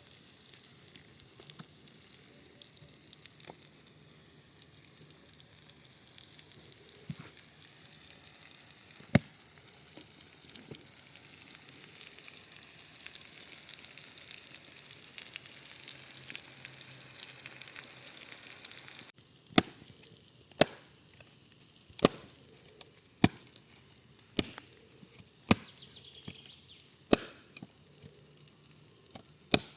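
Vegetables sizzling and frying in a pan over a campfire, a steady hiss with a few small pops, which cuts off suddenly about two-thirds of the way in. Then a knife chops on a cutting board, about nine sharp separate chops roughly a second apart.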